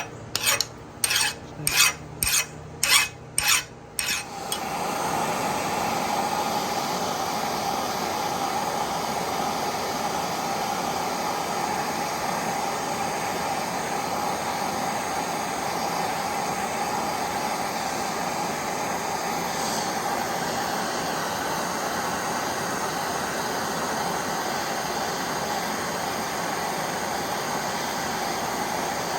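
Eight quick scraping strokes on metal, about two a second, then a steady rushing hiss that comes up about four seconds in and holds.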